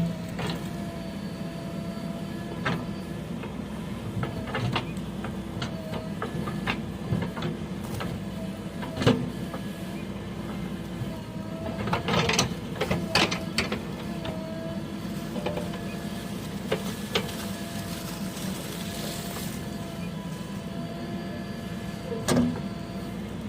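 A heavy vehicle's diesel engine running steadily, its pitch dipping briefly now and then, with scattered knocks and clanks, a cluster of them about halfway through.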